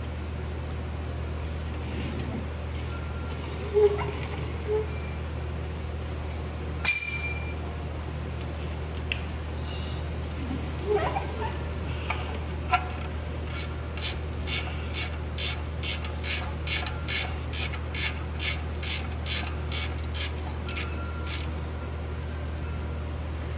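Socket ratchet clicking in a steady run of short strokes, about two to three clicks a second, as it drives the oil drain plug into a Kubota BX23's oil pan. A few single metal clinks and knocks come earlier, as the plug and socket are handled.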